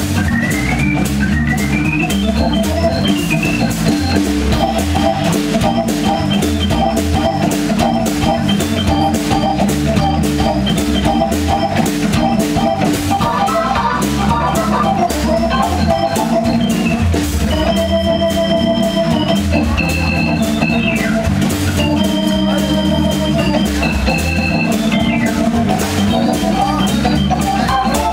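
Hammond organ played live in a jazz style: a steady bass line under quick melodic runs, with upward sweeping runs near the start.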